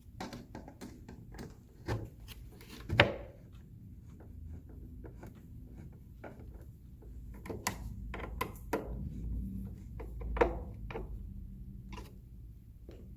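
Scattered clicks and knocks of toy dollhouse panels being handled and screwed together, with one louder knock about three seconds in and a run of clicks later on.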